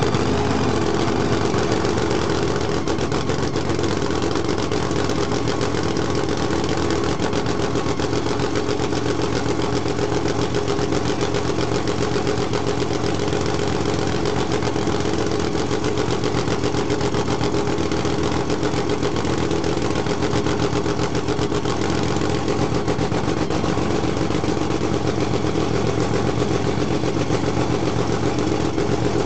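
Supercharged nitro-burning V8 of a nostalgia funny car idling steadily and loudly through open zoomie headers, with a rapid, even firing beat and no revs.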